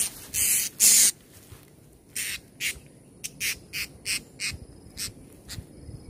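Blue-crowned hanging parrots giving short, shrill, high-pitched calls, a few a second, after two loud noisy bursts in the first second.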